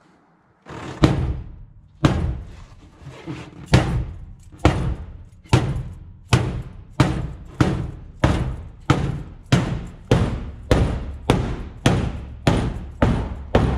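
Big hammer striking the car's metal body again and again, about eighteen blows that start about a second in, at first about one a second and then settling to a steady beat of almost two a second, each blow ringing briefly: a bent corner of the body being straightened.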